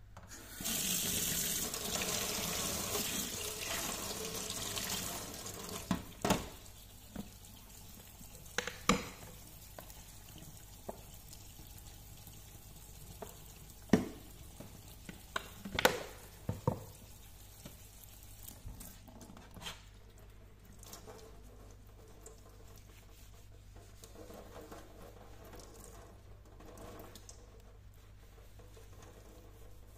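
Kitchen tap running into a stainless steel sink, loudest for the first few seconds and then a thinner, quieter stream. Now and then something knocks sharply against the sink.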